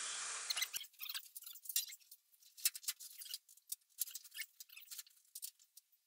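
Sparse, irregular light clicks and taps: a pickup's stepside rear fender knocking and scraping lightly against the bed as it is set in place.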